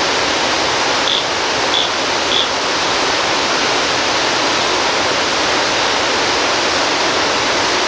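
Waterfall rushing steadily, a heavy even roar of falling water. Three short high chirps sound over it about a second in.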